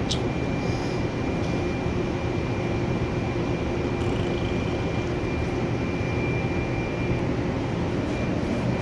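Steady low mechanical rumble with a faint high whine that stops about seven seconds in.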